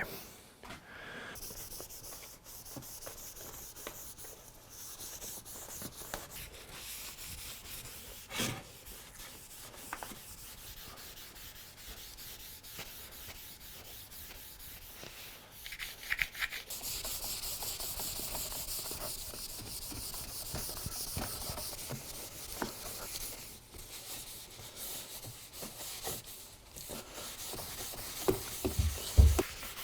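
Steady hand rubbing over quartersawn white oak chair parts, a hissing run of strokes that grows louder and brighter about halfway through. A single knock comes about eight seconds in, and a couple of low thumps near the end.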